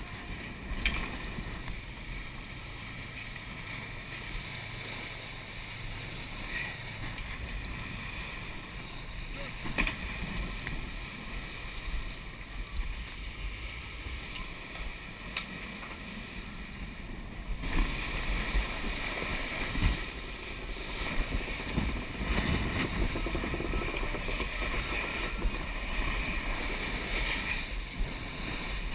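Sailing yacht driven at hull speed under spinnaker: water rushing and foaming along the hull with wind rumbling on the microphone. It gets louder about two-thirds of the way in, with a few short knocks.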